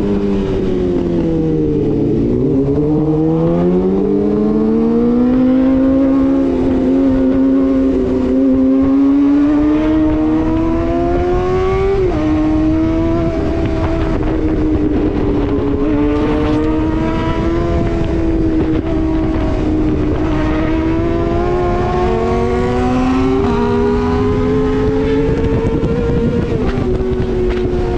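Suzuki GSX-R sportbike's inline-four engine under way. Its pitch falls over the first couple of seconds, then climbs as it accelerates and holds fairly steady, with a few sudden pitch steps along the way.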